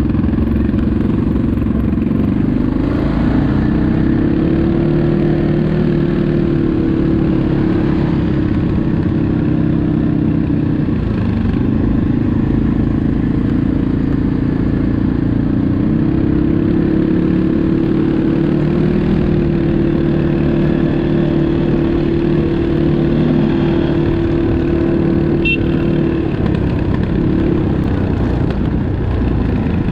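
ATV engine running under load, its revs climbing, holding steady for several seconds, then dropping back, twice over.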